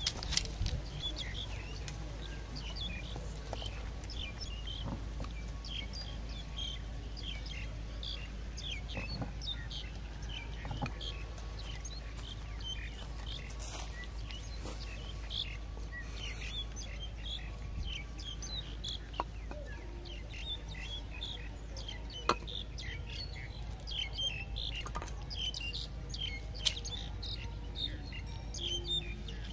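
Many short bird chirps and tweets, quick and scattered throughout, over a steady low hum. A few sharp clicks stand out, once near the start and twice in the last third.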